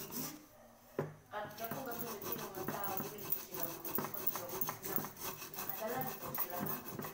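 A small abrasive scrubbed back and forth over the damaged bottom of a small aluminium cauldron, a rubbing, rasping scrape made of many quick strokes. This is surface work on the pot during its repair.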